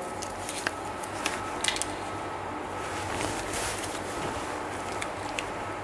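Steady, quiet room noise with a faint hum, and a handful of small clicks and rustles from hands handling the suture.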